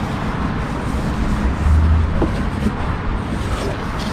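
Steady low rumble of a running vehicle engine, with a few faint knocks.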